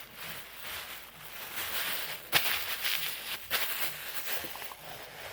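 Runny glitter slime being stirred in a bowl: wet rustling and scraping, with two sharp clicks about a second apart midway through. The mixture is still liquid, not yet setting with the activator.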